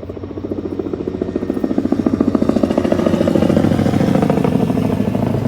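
Helicopter flying close by, its rotor blades making a rapid, even chop that grows louder and is loudest around the middle.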